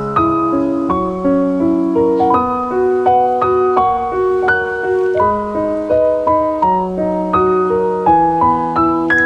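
Background music: a gentle piano melody with sustained chords, notes changing about every half second.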